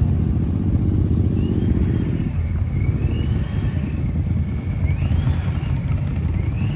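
Deep, steady rumble of car engines moving at low speed, easing slightly about two seconds in. A high tone that rises and falls repeats about every second and a half.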